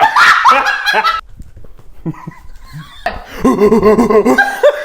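A person making silly non-word vocal noises with laughter, in two loud stretches: one at the start and another about three seconds in.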